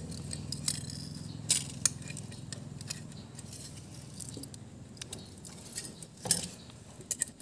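Scattered light metallic clicks and clinks of hand tools being handled at a motorcycle engine during a valve clearance adjustment, the loudest a little past six seconds in and a few quick ones near the end, over a steady low hum.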